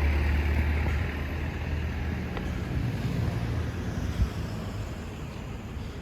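Vehicle running: a steady low hum with road or wind noise over it, loudest in the first second.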